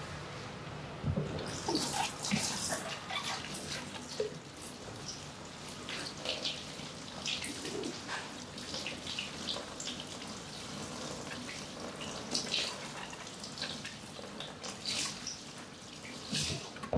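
Water poured from a small metal cup over wet hair at a shampoo basin, splashing and trickling in irregular bursts, along with the wet rubbing of hands working the hair.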